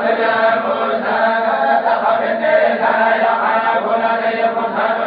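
A group of tolba, Quran reciters, chanting together in a steady collective recitation.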